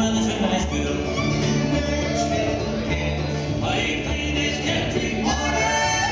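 Bluegrass band playing live: acoustic guitar, fiddle, mandolin and upright bass, with a voice singing.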